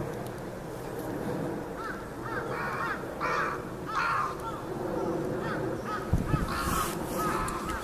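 Crows cawing over and over in a noisy commotion, several birds calling at once, with harsher caws about three and four seconds in. A brief low thump about six seconds in.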